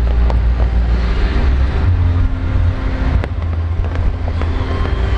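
A large fireworks display going off: a continuous deep booming rumble with scattered sharp cracks and pops, one stronger crack about three seconds in.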